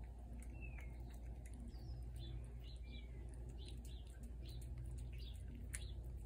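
Small birds chirping in short rising and falling calls during the first three or four seconds, over scattered wet clicks of a cat chewing food from a plate.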